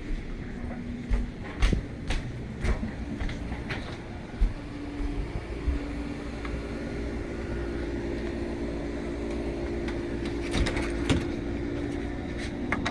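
Sharp clicks and knocks of someone moving about, then from about five seconds in a steady hum with a low tone from a running window air conditioner.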